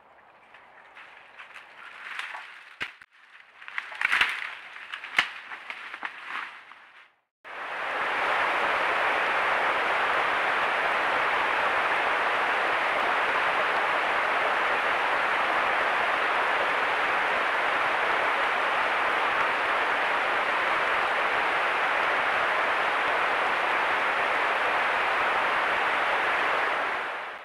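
A black bear walking over dry leaves and rocks, with scattered rustles and a few sharp crunches. After a short break, a creek running high after heavy rain gives a loud, steady rush of water that cuts off suddenly at the end.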